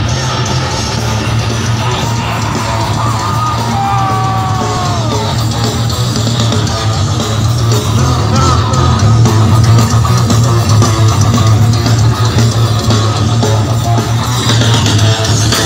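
Live heavy metal band playing loud: distorted electric guitars over bass and drums, with a few sliding guitar notes a few seconds in.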